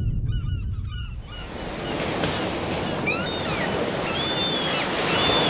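Ocean surf washing in a steady rush, with birds calling over it from about halfway in: a run of high calls, each rising and then falling.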